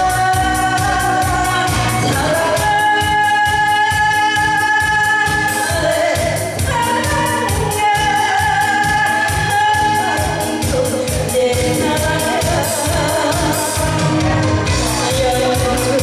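A woman singing a Korean song into a handheld microphone over a backing track with a steady beat, holding long notes.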